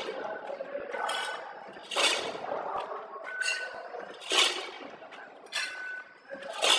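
ZV-320B packing machine cycling, with doses of corn kernels clattering and clinking down its steel weigher buckets and funnel about once a second, over steady machine running noise.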